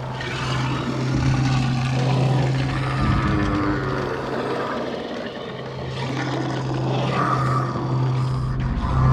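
Designed horror ambience: a steady low drone, like a machine or engine hum, with rumbling noise swelling and fading over it.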